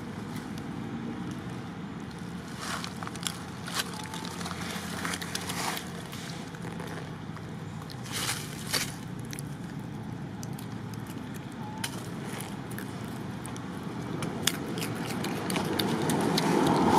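Dry fallen leaves rustling and crackling in scattered bursts, loudest about two seconds in and again around eight to nine seconds. Near the end a passing motor vehicle grows steadily louder.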